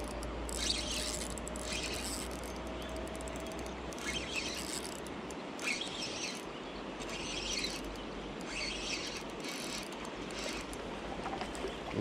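Shimano Sephia 3000S spinning reel being cranked, its gears and rotor giving a soft rattle that comes and goes about once a second, over the steady rush of the river.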